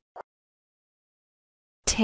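Near silence with one short click about a fifth of a second in, then a woman's voice begins speaking just before the end.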